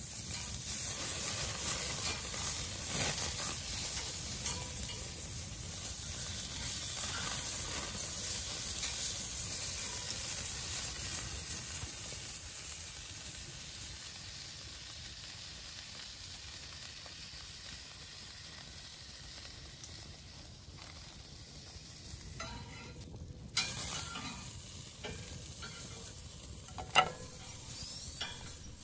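Hamburger patties sizzling on a grill grate over a wood fire, louder in the first half and settling lower after that. A few sharp metal clicks come near the end as tongs work the patties on the grate.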